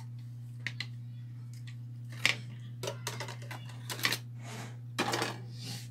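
Handling noise from a motherboard with its CPU cooler being shifted and turned on a desk, its fan cable in hand. A few light clicks come first, then a cluster of clicks, knocks and rustling in the second half.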